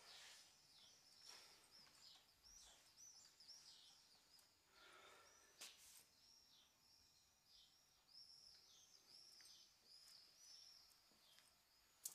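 Faint small-bird chirping, a steady run of short, high chirps several times a second. There are a couple of faint clicks, one about midway and one near the end.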